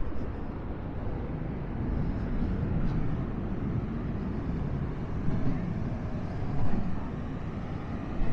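Wind buffeting the microphone, a low rumbling rush that swells and eases, with the wash of breaking surf beneath it.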